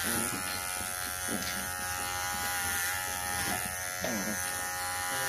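Electric dog grooming clippers running with a steady buzz while shaving the hair under a four-week-old poodle puppy's chin.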